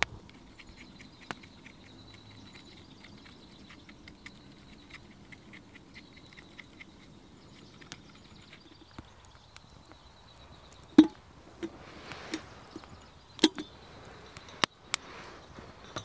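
Small wood fire crackling faintly, then a handful of sharp wooden knocks and clicks starting about eleven seconds in, the first of them the loudest.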